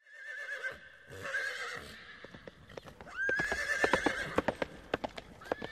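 A horse whinnying several times over galloping hoof clops, which come in a quick run from about two seconds in.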